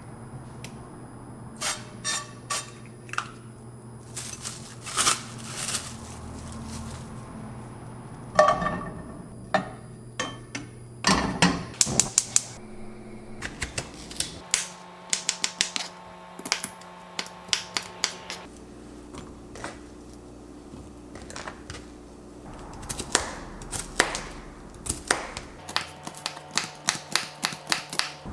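Kitchen knife chopping a red bell pepper and bok choy on a plastic cutting board: quick knocks of the blade against the board in runs of several a second, densest in the second half. A few short hissing bursts and clatters come in the first half.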